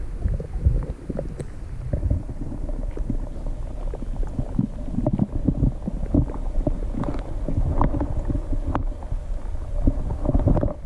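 Muffled underwater water noise heard through a submerged camera: a constant low rumble with many irregular small knocks and clicks, and a faint steady hum.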